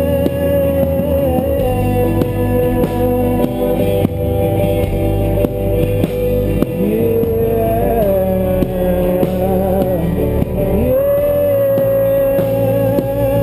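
A rock band playing live: guitars over a steady drum beat, with a long held melody line on top that slides between notes.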